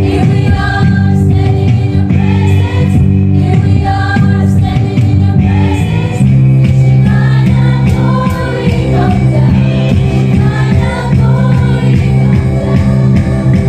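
A group of female singers performing a gospel worship song through microphones, with instrumental accompaniment, amplified and loud.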